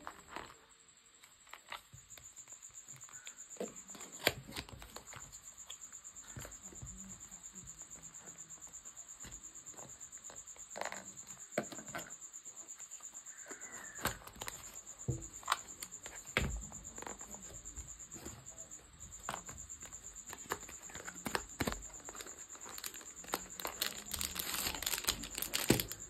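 Cardboard box of a 3x3 speed cube being handled and opened by hand: scattered taps, scrapes and rustles of the paperboard flap and the contents sliding out, growing into busier rustling near the end. A steady high-pitched whine sits underneath.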